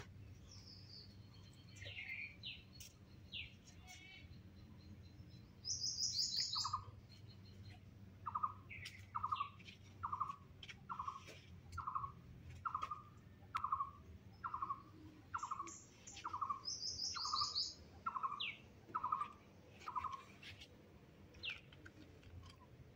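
Birds calling. One repeats a short, even note a little more than once a second for about thirteen seconds. Others give quick high chirps, loudest in two brief clusters about 6 and 17 seconds in.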